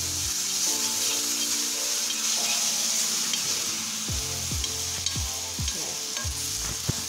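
Mustard-greens saag sizzling in hot ghee on a flat griddle (tawa), stirred and scraped with a steel spoon as it is reheated. The sizzle is a steady, even hiss.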